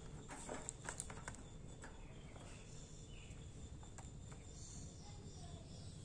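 A few light clicks in the first second or so, then faint chirps from budgerigars over a low steady hum.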